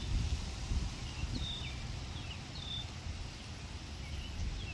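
Low, steady outdoor rumble like wind on the microphone, with a few short, high bird chirps, three within the first three seconds.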